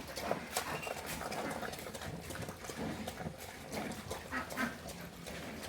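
Pigs grunting, with scattered short clicks and rustles.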